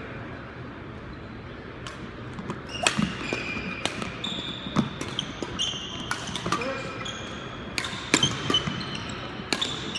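Badminton rackets striking a shuttlecock in a fast doubles rally: sharp hits about once a second from about three seconds in, with shoe squeaks on the wooden court.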